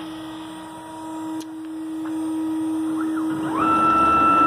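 CNC router spindle whining steadily at about 19,000 RPM. About three and a half seconds in, the stepper motors add a higher whine that ramps up in pitch and then holds steady as the gantry makes a fast move toward the workpiece.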